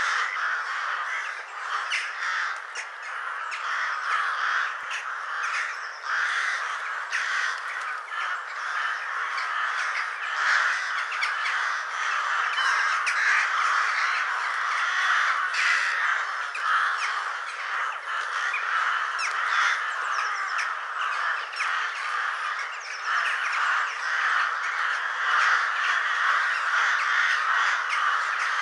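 Ravens calling over a dense, unbroken chorus of many birds calling at once.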